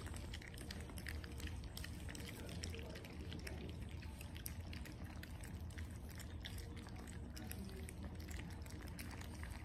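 A group of French Bulldog puppies lapping and slurping wet raw-food gruel from a bowl, a dense, continuous run of wet smacking clicks, over a steady low hum.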